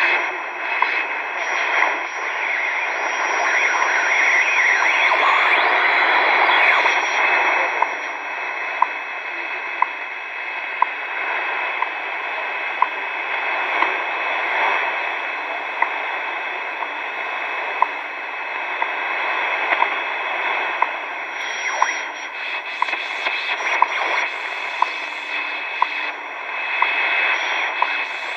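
Hitachi Hi-Phonic WH-888R portable AM/shortwave radio playing static: a steady hiss of noise through its speaker. From about eight seconds in, sharp ticks come roughly once a second.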